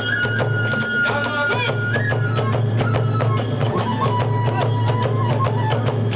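Hiroshima kagura accompaniment: a bamboo flute holds long high notes, stepping down to a lower held note about two to three seconds in, over fast, steady drum and hand-cymbal beats.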